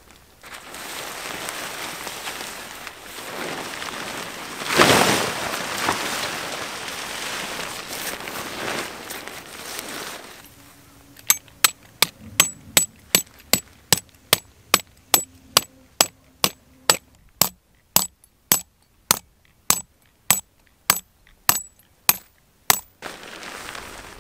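Rustling handling noise for about ten seconds, then a run of about twenty sharp clinks, evenly spaced at roughly two a second, stopping about a second before the end.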